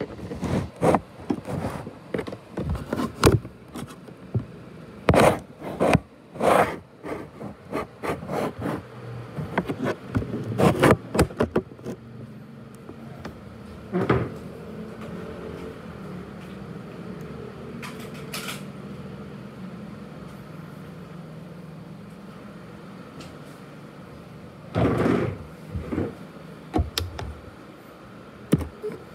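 ASUS X543UA laptop's cooling fan running with a steady whir and faint hum, the jet-engine sound of a laptop that is broken down. Irregular knocks and handling clicks come over it for the first twelve seconds or so, and a few more near the end.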